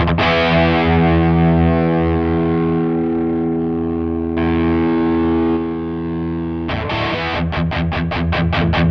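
Distorted electric guitar, a Fender Stratocaster through a Nux MG300 amp model: a chord struck and left ringing for several seconds, with a fresh strike about four seconds in, then fast, rhythmic picking near the end.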